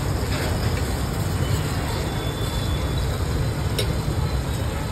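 Steady low rumble of street traffic, with one sharp click about four seconds in.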